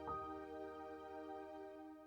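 Quiet background music: a held chord with a fresh note struck at the start, fading out towards the end.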